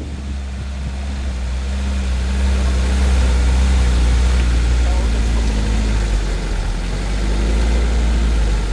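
Off-road vehicle's engine running at low revs, getting louder about two seconds in, its pitch wavering slightly.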